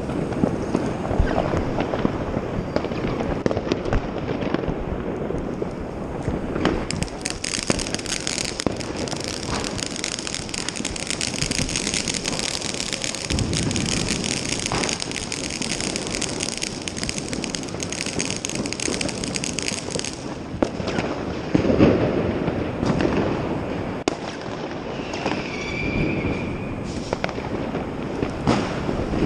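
New Year's fireworks and firecrackers going off all around: a constant run of bangs and pops, with a dense crackling from about seven seconds in until about twenty. A short whistle sounds near the end.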